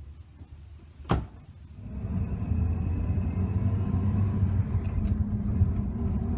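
A sharp knock about a second in, typical of the pickup's door being shut, then the 1989 Dodge Dakota's engine runs steadily as the truck drives, heard from inside the cab.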